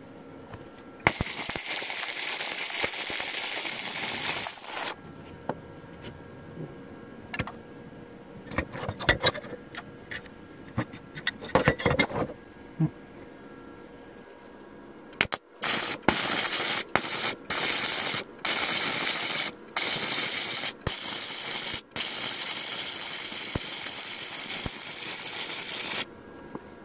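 Flux-core wire welder arc crackling and hissing, with the torch on negative and the ground clamp on positive. A short run of about four seconds is followed by several seconds of scattered clicks and knocks. Then a longer weld is laid in a string of bursts with short breaks between them.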